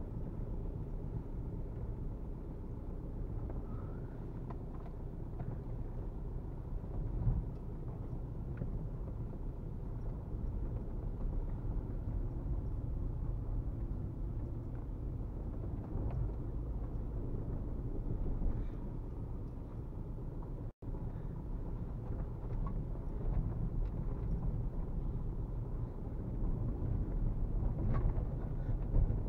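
Low, steady rumble inside the cabin of a VW Golf Mk4 with its 1.9 TDI four-cylinder turbodiesel engine, crawling along a rough dirt track, with a few short knocks from the car over bumps. The sound cuts out for an instant about two-thirds of the way through.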